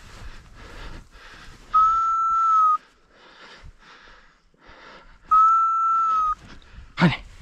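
A dog whistle blown twice, each a steady one-second blast, signalling the English pointers. Footsteps crunch in deep snow in between, and a brief sharp sound comes near the end.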